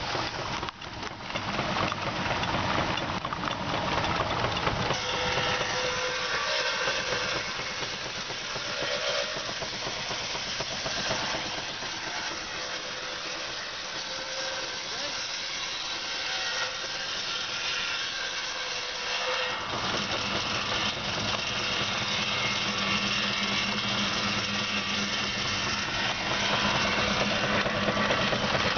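Miniature steam traction engine running and driving a circular saw rig through a long flat belt: steady machine running with steam hissing. A lower, steadier hum comes in about two-thirds of the way through.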